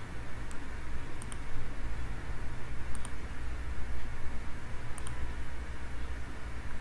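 Steady low microphone hum and hiss, with a few faint computer mouse clicks, several in quick press-and-release pairs.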